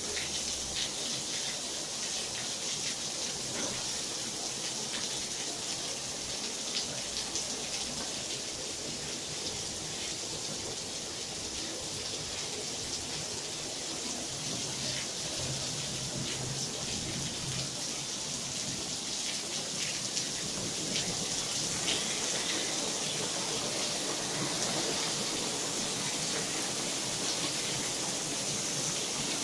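Heavy rain falling steadily on a tiled patio and garden, an even hiss of pattering drops.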